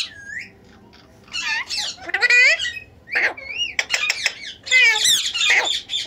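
Caged Alexandrine and ringneck parakeets calling in a string of loud, harsh bursts, with a short wavering whistle about four seconds in.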